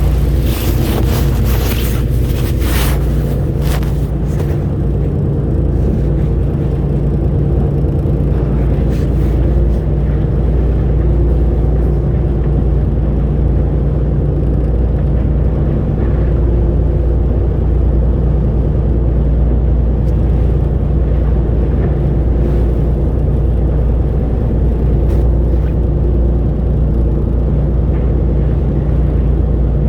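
Engine running steadily with a low, even drone, with a few short bursts of wind or water noise in the first few seconds.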